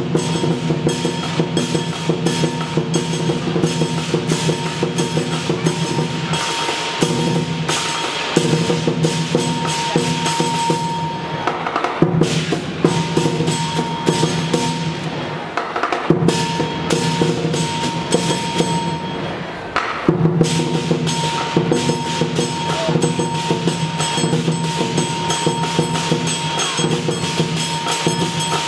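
Lion dance percussion: a big drum beating rapidly with cymbals and a gong crashing along, broken by a few short pauses.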